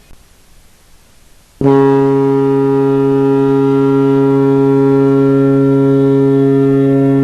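An NHL arena goal horn: after a short pause it starts abruptly about a second and a half in and sounds one long, steady, deep blast.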